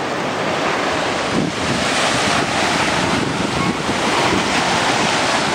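Surf washing onto a sandy beach in a steady rush, with wind blowing across the microphone.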